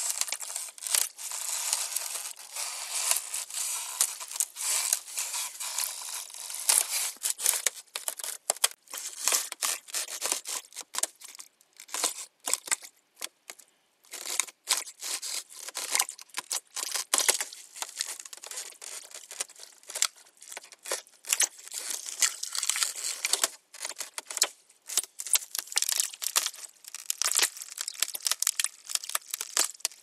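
Ice creaking and crackling: a dense, irregular stream of sharp cracks and crackles that thins out briefly about halfway through.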